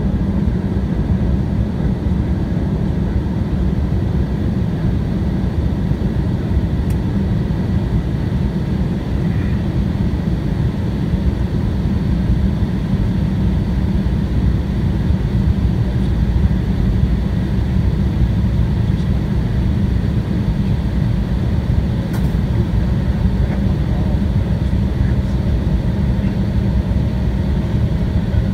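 Steady cabin noise inside an Embraer 175 airliner on its descent: a low rumble of airflow and its two GE CF34-8E turbofan engines, with a faint steady whine above it.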